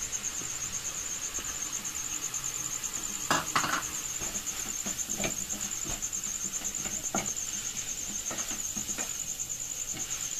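Wooden spatula stirring and scraping a shredded-cabbage and chicken momo filling in a nonstick wok, with scattered knocks against the pan, the loudest a few seconds in. A steady, high, pulsing chirr runs underneath.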